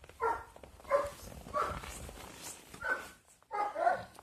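A year-old boar giving about five short calls while it is being ridden.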